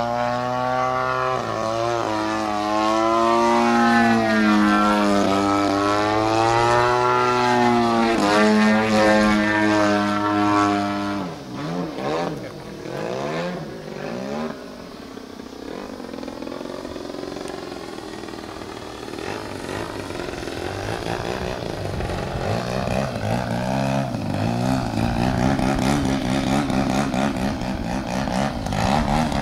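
Engine and propeller of a 30% scale Extra radio-controlled aerobatic plane in flight, the pitch sweeping up and down as it manoeuvres. About eleven seconds in the note drops abruptly to a fainter, thinner drone, which slowly grows louder toward the end.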